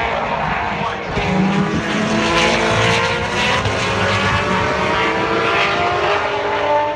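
Formula One car engines running at high revs, several high engine notes sliding up and down together.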